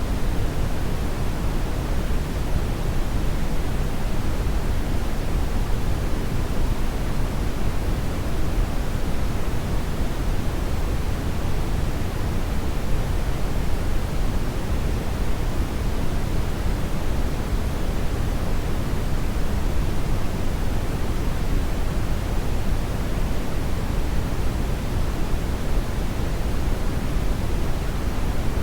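Hair dryer blowing steadily: an even, rushing noise, heaviest in the low end, that does not change.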